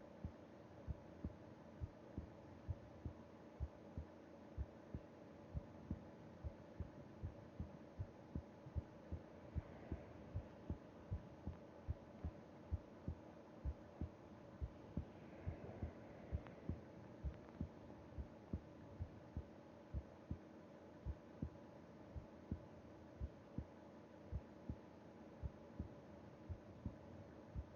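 Human heartbeat heard against the chest of a person at rest in sleep: a steady, even rhythm of soft low thumps in lub-dub pairs, over a faint steady hum.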